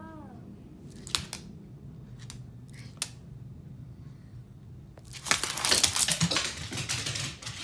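A few sharp clicks, then about two and a half seconds of loud rustling and crinkling.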